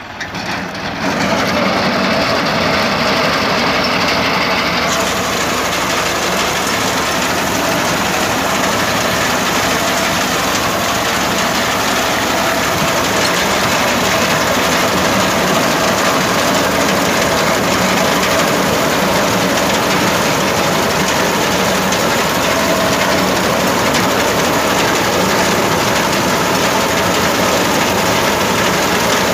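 Sonalika DI-734 tractor's diesel engine running under load while its front-mounted wheat reaper cuts through standing wheat, a loud, dense and steady mechanical noise that gets louder about a second in.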